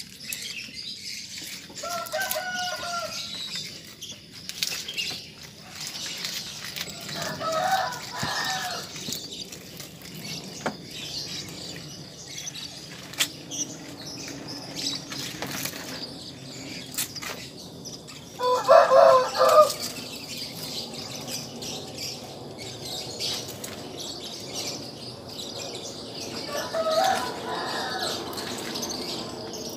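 Four loud animal calls stand out over a steady background of small birds chirping. They come spread out over the stretch, and the loudest, about two-thirds of the way through, wavers in several pulses. Scattered light clicks and knocks are also heard.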